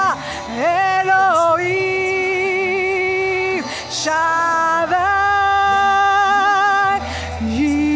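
A woman singing a slow worship song in long held notes, each lasting a second or two, moving to a new pitch between phrases, with a soft low accompaniment underneath.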